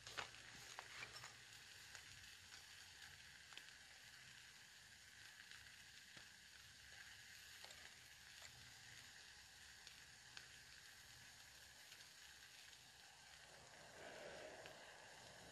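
Faint, steady sizzling from a frying pan on a burning log stove, with scattered small crackles. Near the end a soft rush of air as the fire is blown into through the stove's air hole.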